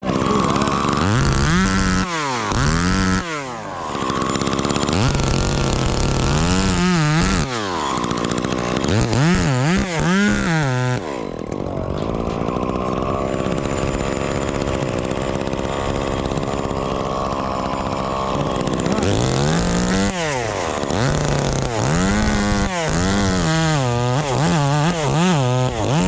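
Chainsaw engine revving up and down over and over in quick rises and falls, with a steadier, slightly quieter stretch in the middle.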